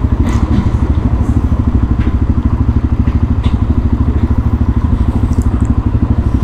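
Suzuki DR-Z400SM's single-cylinder four-stroke engine idling with a steady, rapid thump of about a dozen beats a second, the bike stopped and waiting.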